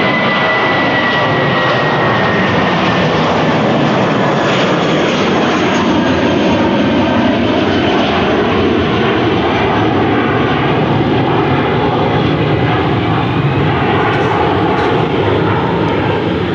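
Airbus A320's twin jet engines at takeoff thrust as the airliner climbs out: a steady, loud roar with a faint high whine gliding slightly down near the start and slow wavering sweeps through the roar as the aircraft passes.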